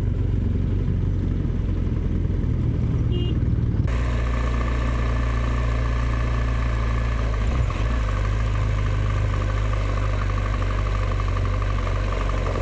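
BMW R1200GS motorcycle's boxer-twin engine running steadily. About four seconds in, the sound changes abruptly and more hiss comes in above the engine.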